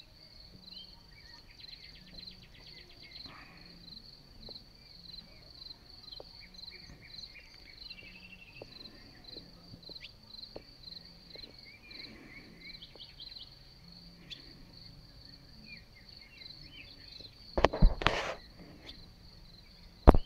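Crickets chirping in a steady, even, high pulse through an evening field, with scattered faint chirps around it. Near the end a brief loud rustling burst covers them for about a second.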